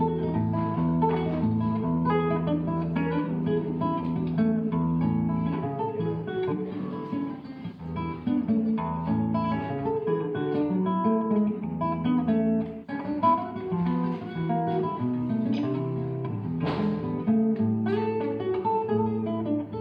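Solo acoustic guitar played fingerstyle: a plucked melody over bass notes, broken by a few sharp strummed chords. The piece is a gato, an Argentine folk dance.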